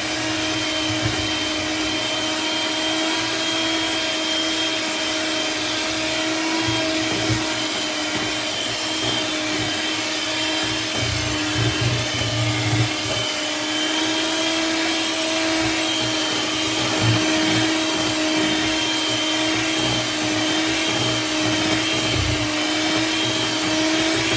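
Electric stand mixer running at a steady speed, its beaters whipping a thick cream in the bowl: a continuous motor hum with a whine that holds one pitch throughout.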